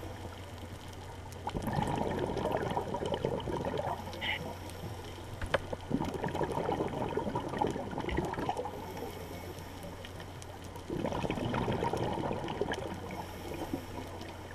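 Underwater sound of a scuba diver's exhaled bubbles rushing and gurgling from the regulator in two long stretches, with a steady low hum underneath.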